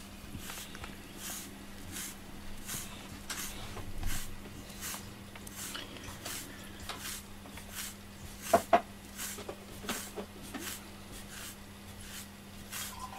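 FURminator deshedding tool raked repeatedly through a cat's fur, short brushing swishes at a steady pace of about one and a half strokes a second, pulling out loose undercoat. A couple of small clicks are heard around eight to ten seconds in.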